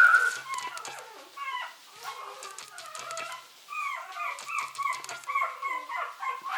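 Young Chihuahua puppies whimpering and yipping: a string of short, high squeaks that comes thicker and faster in the second half.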